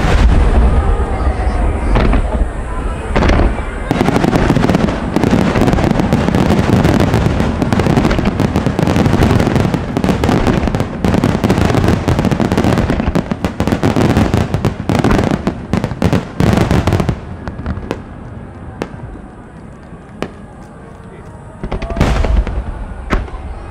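Starmine fireworks barrage: rapid aerial shell bursts and crackling, thickest from about four seconds in to about seventeen, then thinning to a few scattered bangs before another burst near the end.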